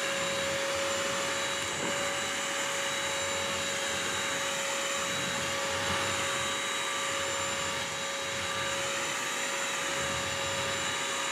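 BISSELL CrossWave wet/dry vacuum running steadily with a constant whine as it vacuums and scrubs spilled eggs off the floor.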